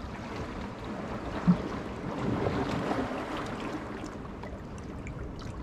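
Shallow rock-pool water sloshing and lapping close to a camera at the water's surface, stirred by someone wading and reaching into the pool. A short low sound stands out about a second and a half in.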